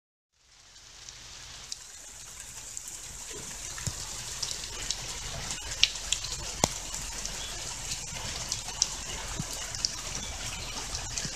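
Water falling and trickling, a steady splashing haze with scattered droplet clicks. It fades in about half a second in and grows a little louder.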